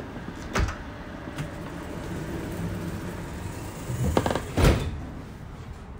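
Inside a Flexity tram standing at a stop: a steady low hum with a sharp knock about half a second in and a cluster of loud clunks around four seconds in.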